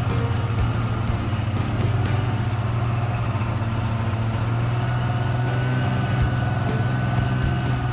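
Polaris snowmobile engine running steadily as the sled is ridden, a constant low hum, with music playing over it.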